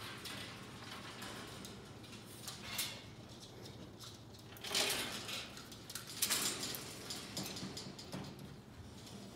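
Squirrel monkey moving about its wire cage: scattered rustling and light clinking, with the loudest bursts about five and six seconds in.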